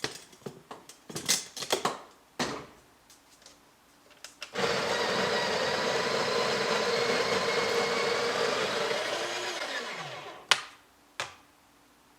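Breville Barista Express's built-in conical burr grinder grinding a small dose of coffee beans for about five seconds, then winding down with a falling whine. Light clicks and handling taps come before it, and a sharp knock follows near the end.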